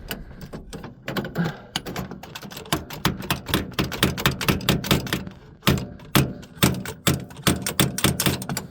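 Hammer striking the tractor's handbrake mechanism in a long run of quick, uneven metal taps, knocking back into place a part that kept the brakes dragging. A tractor engine runs steadily underneath.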